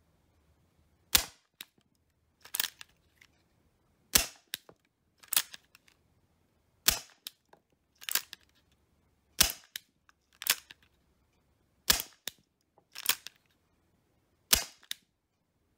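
Marushin S&W M629 Classic .44 Magnum gas airsoft revolver firing six sharp single shots, about two and a half seconds apart. Between shots there is a short cluster of clicks as the hammer is cocked. The revolver, whose hammer, trigger and gas release had been jammed, is firing again after repair.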